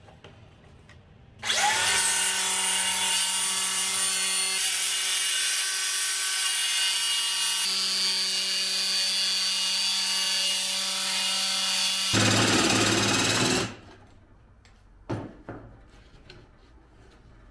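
DeWalt circular saw cutting through a plywood sheet. The motor spins up about a second and a half in and runs steadily through the cut for about twelve seconds. Its tone changes in the last second or so before it stops, and a few light knocks follow.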